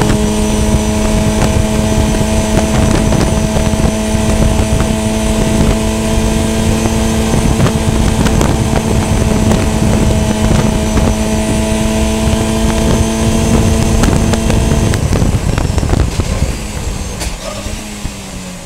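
VW Funcup race car engine heard from on board, held at a steady high pitch under load with road and wind rumble underneath. About three-quarters of the way through, the engine note falls in pitch and gets quieter as the throttle comes off.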